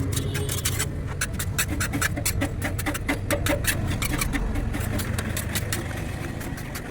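An engine running steadily under a fast run of sharp clicks or taps, several a second, which thin out near the end.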